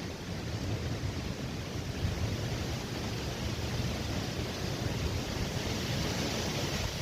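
Gusty storm wind blowing and buffeting the microphone: a continuous rushing hiss over an uneven low rumble, with the hiss swelling about five seconds in as a gust builds.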